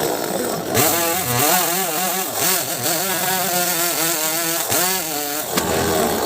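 Two-stroke chainsaw engine running fast, its pitch rising and falling repeatedly as it revs up and down while cutting.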